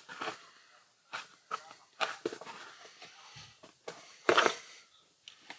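Scattered small clicks and taps of hand work on a gas cap and its gasket material, with one louder short scrape or rustle a little past four seconds in.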